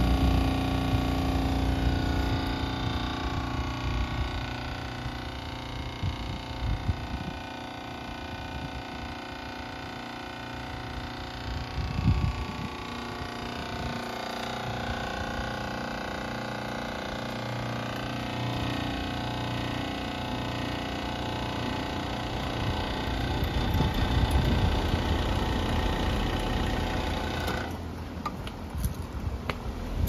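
2012 Bryant Evolution two-stage heat pump outdoor unit running in its defrost cycle: the compressor hums steadily with several steady tones over a low, uneven rumble of wind on the microphone. There is a single knock about twelve seconds in, and near the end the higher tones drop away.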